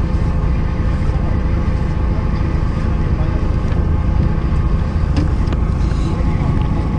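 Fishing boat's engine running steadily: a low rumble with a faint hum. A few faint clicks sound about five seconds in.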